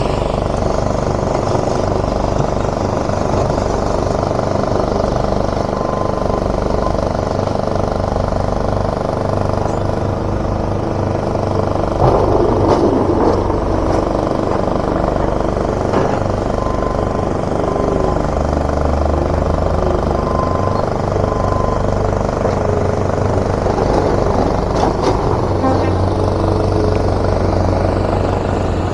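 Diesel engines of heavy demolition-site machinery, loader and excavators, running steadily as material is loaded onto a wagon. The sound swells briefly about twelve seconds in.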